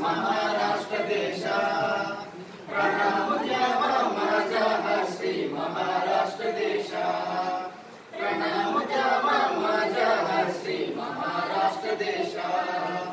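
A small mixed group of young men and women singing a song together without accompaniment, with short breaks between lines about two and a half seconds in and again about eight seconds in.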